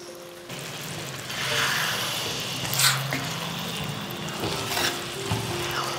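Banana flower pickle frying in oil in a steel pan, sizzling steadily as it is stirred and cooked down to thicken, with two sharp clinks of the spoon against the pan.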